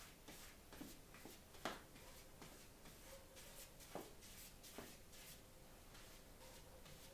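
Faint, repeated strokes of a hand tool rubbing over paper laid on an inked linoleum block, burnishing the print by hand, with a few sharper ticks.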